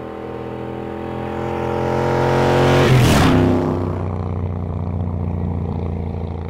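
Motorcycle engine growing louder as the bike approaches, passing close by about three seconds in with a sharp drop in pitch. The engine then runs on steadily at a lower level.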